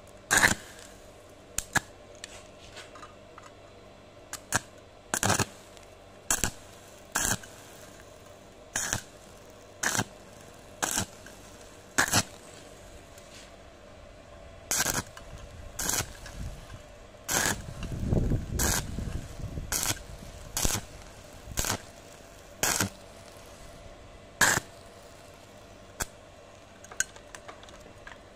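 Stick-welding arc with a 3.2 mm electrode on 1 mm sheet steel, struck in short bursts about once a second and broken off again each time, with a longer, lower burst about two-thirds of the way through. The arc is laid down in brief dabs to fill a large hole without burning through the thin sheet.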